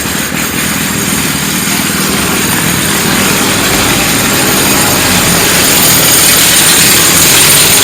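Local bus running, its engine hum mixed with loud road and wind noise, growing gradually louder.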